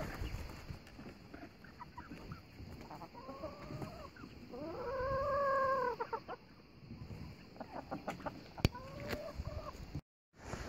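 Hens clucking in short, scattered calls, with one longer rising-then-falling call about five seconds in that is the loudest sound. A single sharp click comes near the end.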